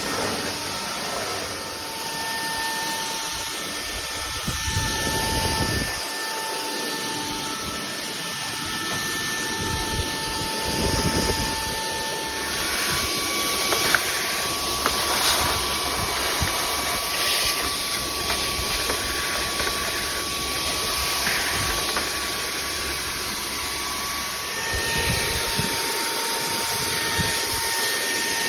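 Bulelink cordless stick vacuum cleaner running: a steady motor whine over a rush of air. The whine steps higher about twelve seconds in and drops back near the end.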